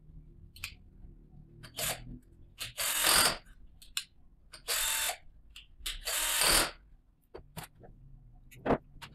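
Ronix cordless drill-driver run in four short bursts, the second the loudest, driving a wire's terminal screw home on a contactor, with sharp clicks between the bursts.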